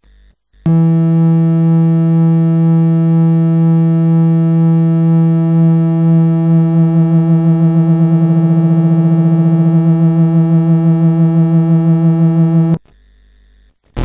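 Sherlock Ohms Angel Chorus Eurorack oscillator playing a triangle wave: a steady low synth tone that starts a little under a second in. About halfway through it begins to waver and pulse rapidly while a knob on the module is turned, then it cuts off suddenly near the end.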